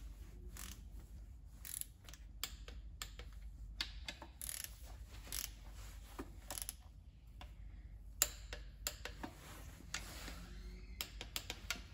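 Ratchet wrench clicking in short, irregular runs as bolts on an engine's oil pump are turned down.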